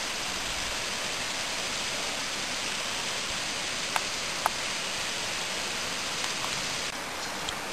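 Steady rush of a small stream running among boulders, with two brief clicks about four seconds in.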